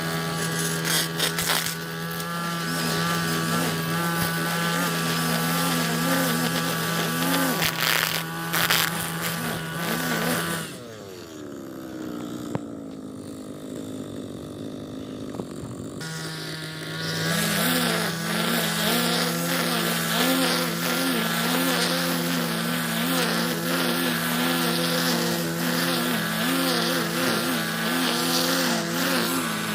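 Petrol string trimmer engine running at high speed while cutting grass, its note wavering with the load. About ten seconds in, it is throttled down and the pitch falls to a quieter idle. About six seconds later it is opened up again to full speed.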